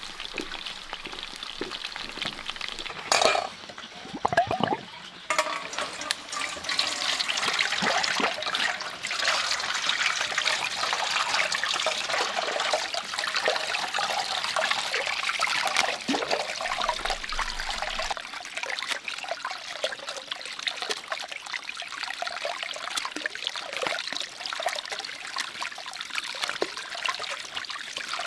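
Water running and splashing steadily, as when produce is washed under running water. A few knocks and clatters come about three to five seconds in.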